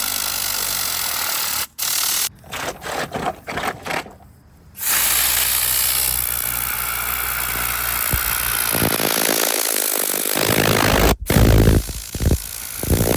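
A machine running with a steady hiss, cut off and restarted in short pieces several times, once about two seconds in and again near the end.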